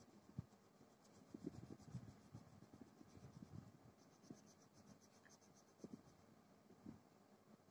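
Faint scratching of a colour pencil shading on paper in quick, irregular back-and-forth strokes.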